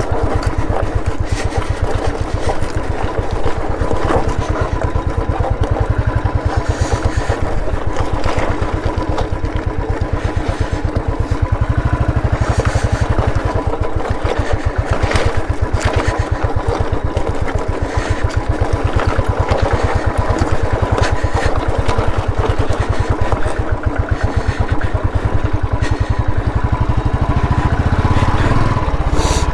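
Royal Enfield Classic 350's air-cooled single-cylinder engine running steadily as the motorcycle is ridden over loose river stones, with occasional knocks and clatter from the rough ground.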